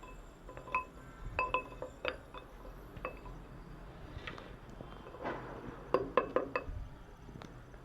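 Slate pencils clinking and snapping: scattered sharp, brittle clicks with a brief ring, then a quick cluster of louder cracks about six seconds in.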